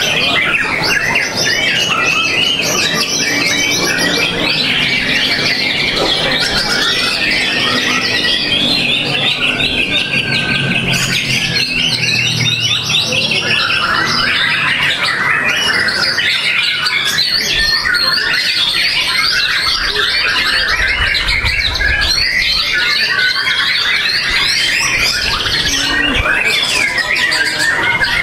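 White-rumped shama singing a continuous, fast, varied song of rapid chattering trills and whistled phrases.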